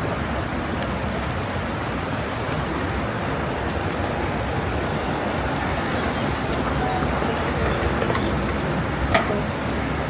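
Steady roar of rushing water from a river or waterfall, even and unbroken throughout, with one short sharp click about nine seconds in.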